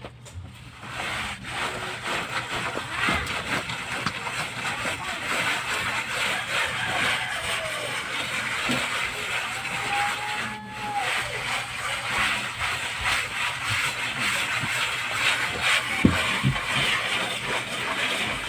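Mason's hand tool scraping and rubbing over a rough cement-plastered wall, a continuous uneven scraping kept up throughout, with a few dull knocks near the end.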